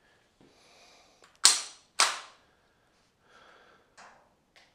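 Crosman DPMS CO2-powered BB rifle firing two semi-auto shots about half a second apart, each a sharp crack. A few much fainter ticks follow near the end.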